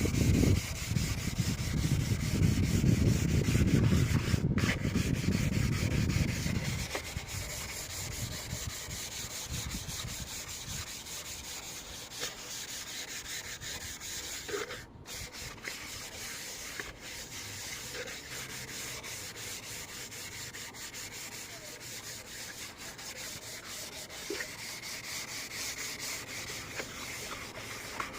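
Steady abrasive rubbing, with a heavy low rumble during the first seven seconds.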